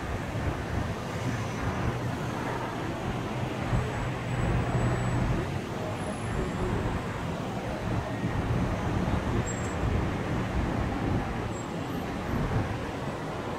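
Road traffic noise: a steady rush of vehicles, with a low engine hum for a few seconds near the start.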